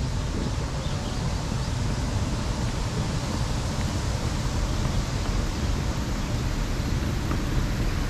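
Steady outdoor ambient noise, an even rushing hiss with a fluttering low rumble underneath and no distinct events.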